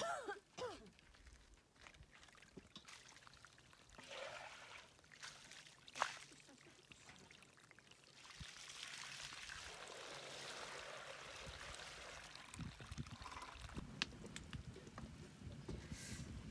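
Water poured out of a large metal basin, splashing onto the ground for about four seconds, after a few sharp knocks and clinks.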